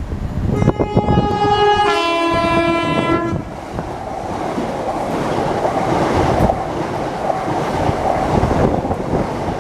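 Train sounding a two-tone horn, a higher note and then a lower one, for about three seconds in all. After that comes the steady noise of the train running through.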